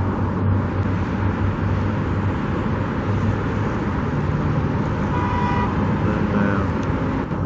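Steady road traffic noise from passing cars, with a brief high tone about five seconds in.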